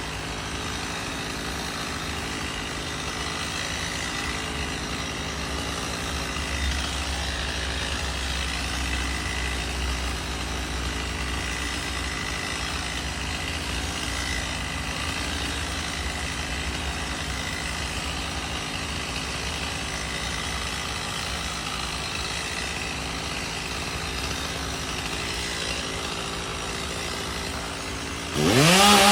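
An engine idles steadily; then, about a second before the end, a two-stroke chainsaw revs up sharply and gets much louder.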